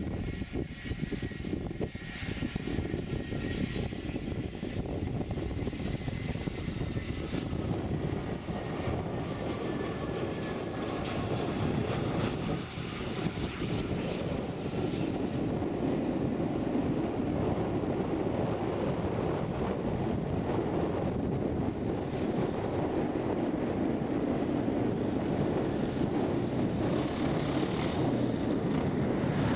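Airbus A320-214 with CFM56 turbofan engines landing: a steady jet rumble with a faint high whine that falls slightly in pitch as it approaches. The rumble grows louder in the second half as the airliner touches down and rolls out along the runway.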